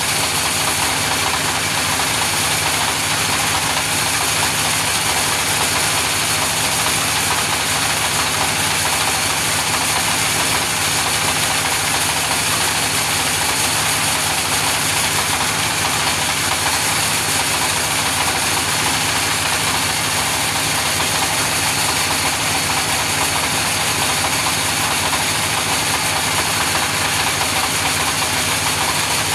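Engine-driven sawmill saw running steadily, an even mechanical drone with a strong high hiss and no change in level.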